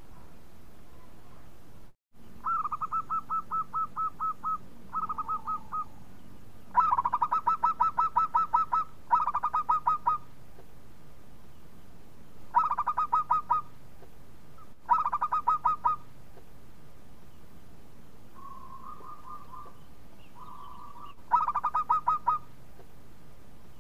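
Zebra dove (perkutut) cooing: phrases of quick staccato coo notes, about ten to a second, each phrase lasting one to two seconds, repeated about seven times with short pauses between. The phrases in the middle and one near the end are the loudest, and a couple of softer, lower phrases come between them.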